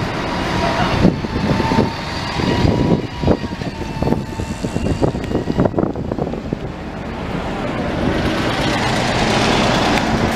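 Street traffic with buses passing, with scattered short knocks in the first half. From about eight seconds in, a bus engine running close by grows louder and steady as a red double-decker pulls past.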